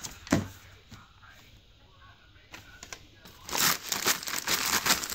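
Wrapping paper being torn and crumpled by a toddler's hands: a short sharp crackle just after the start, then a long loud run of ripping and crinkling paper from about three and a half seconds in.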